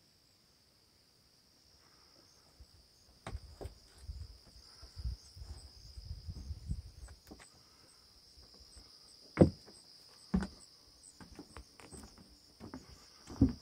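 Footsteps on a wooden boardwalk, irregular thuds with a few heavier ones, over a steady high chirring of insects.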